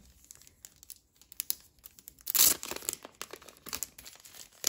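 Clear plastic sleeve crinkling and rustling as a cardboard pack is worked out of it by hand, with many small crackles and one louder rustle about halfway through.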